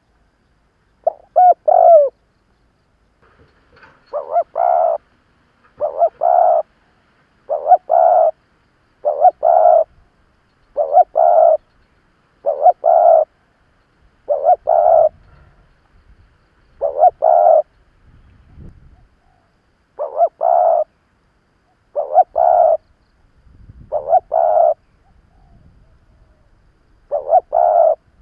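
Spotted dove cooing over and over: a short two-part coo phrase about every one and a half to two seconds, with a few longer pauses between phrases.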